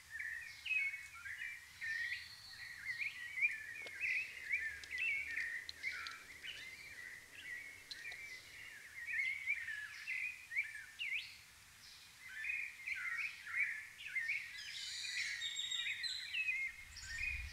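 A chorus of songbirds chirping and singing together, many short calls sliding up and down and overlapping without a break.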